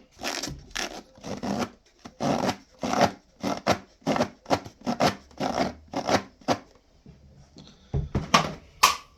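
A clogged vacuum cleaner filter being flicked across ribs to knock the packed dust out: a run of short rasping strokes, about two to three a second, that stop about seven seconds in. A couple of dull knocks and a sharp click follow near the end.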